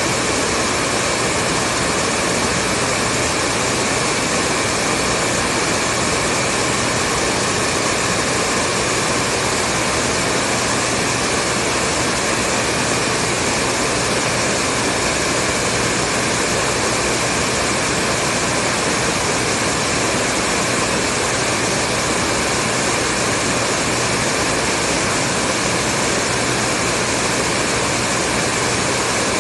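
Hair dryer running steadily: a continuous, unchanging rushing whoosh of blown air with a faint motor hum, used as white noise.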